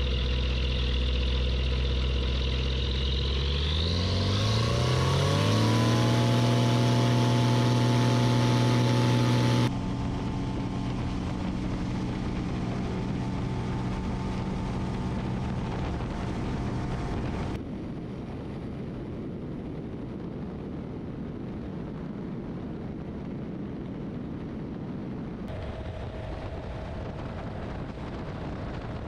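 Kitfox III light aircraft's engine and propeller going to takeoff power. A steady drone rises in pitch over a couple of seconds about four seconds in as the throttle is opened, then holds. The drone drops abruptly in level about ten seconds in and again near eighteen seconds, running on as an even engine drone mixed with rushing air.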